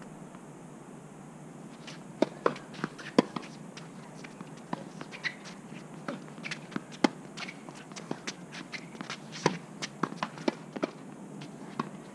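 Tennis ball bouncing on a hard court and being hit with rackets, with players' shoes on the court: a string of sharp, irregular pops, the loudest a couple of seconds in and again about halfway through.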